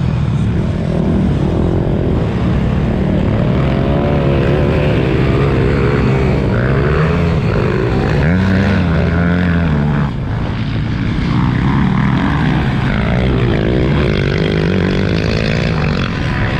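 Several motorcycle engines revving hard, their pitch climbing and dropping as they shift and race, the towing bike loudest, over a dense low rumble.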